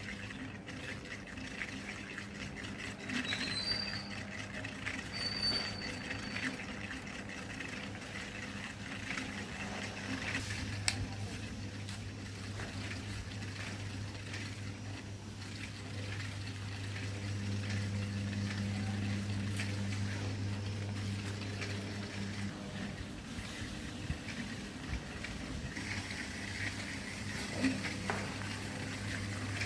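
Upcycled 220V mini ceiling fan's small motor running with a steady low hum, growing somewhat louder partway through, with a few faint clicks.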